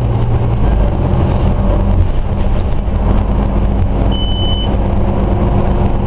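Diesel engine of a Scania OmniCity single-deck bus running, a steady low drone heard inside the passenger cabin. A short high beep sounds once about four seconds in.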